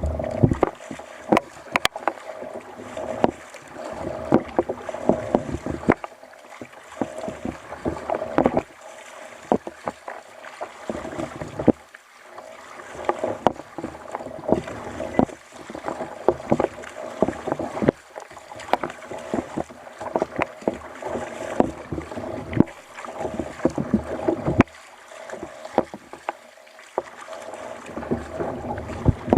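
Water splashing and slapping against a fishing kayak's hull, with many irregular sharp knocks.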